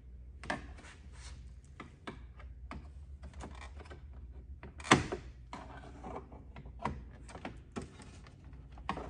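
Plastic clicks and knocks from a BMW 740Li's kidney grille trim as its retaining clips are pressed in and the trim is worked loose from the bumper. The clicks come at irregular intervals, with one sharp, loud one about five seconds in.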